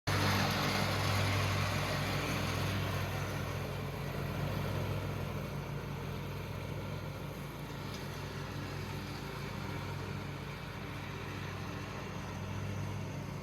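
Lawnmower engine running steadily, growing gradually quieter over the first several seconds.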